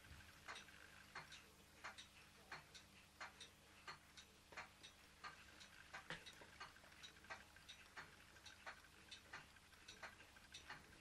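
Ross yoke low-temperature Stirling engine running slowly on a mug of hot water, giving faint, light clicks from its moving parts a couple of times a second in a slightly uneven rhythm.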